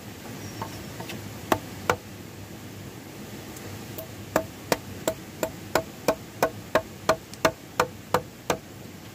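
Sharp strikes of a hand tool on wood: two separate knocks, then about four seconds in a steady run of about a dozen blows, roughly three a second.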